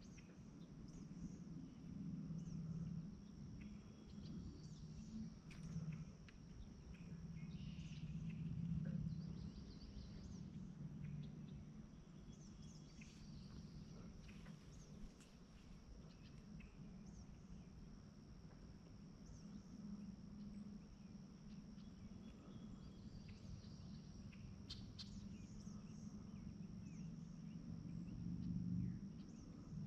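Quiet pondside outdoor ambience: insects keep up a steady high-pitched drone, with scattered short bird chirps and a faint low steady rumble underneath.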